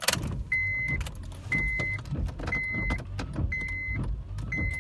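Car's warning chime beeping steadily about once a second, each beep a single high tone lasting about half a second, over a low rumble, with a sharp click right at the start.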